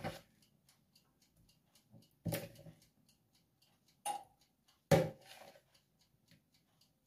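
A spoon scooping crumbled cheese and scraping and tapping against the bowls in four short bursts: one at the start, then about two, four and five seconds in.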